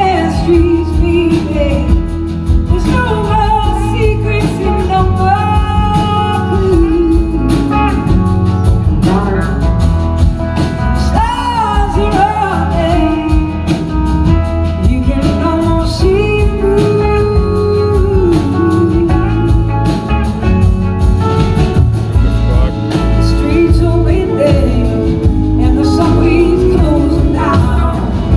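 Live band playing a slow blues-soul song heard from the audience through the PA: a woman singing lead over electric guitars, bass and drums.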